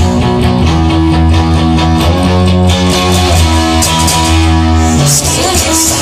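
Rock song in an instrumental passage: guitar chords changing every second or so over a steady bass.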